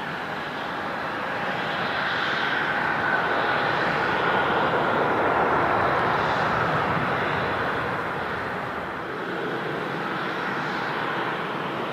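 Jet airliner engines: a rushing roar with a high whine that slowly drops in pitch, swelling to its loudest midway and then easing off as the aircraft passes.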